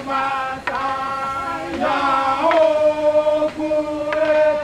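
Voices chanting a traditional Anutan song in unison, on long held notes that change pitch a few times.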